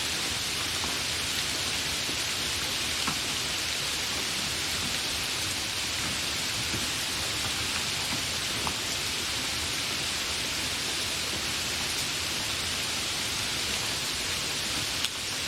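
Steady, continuous rain falling, an even hiss with a few distinct drop ticks scattered through it.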